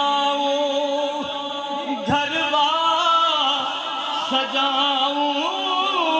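A man singing a naat, a devotional song in praise of the Prophet, unaccompanied, in long held notes with slides between them, one rising about two seconds in.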